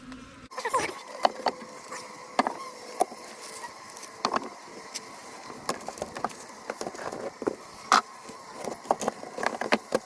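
Honeybees buzzing around an open hive, under many sharp clicks and knocks.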